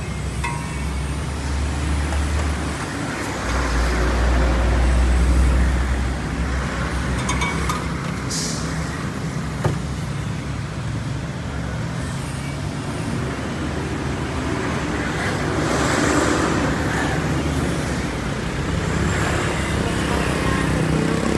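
Roadside traffic: motorcycle and car engines running and passing close by. A steady low engine rumble is louder during the first six seconds or so.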